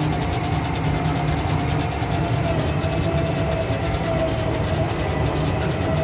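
Engine running steadily: a continuous low rumble with a steady whine above it.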